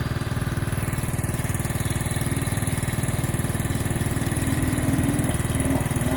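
Small petrol engine on a Power Wheels ride-on conversion, idling steadily, slightly louder near the end.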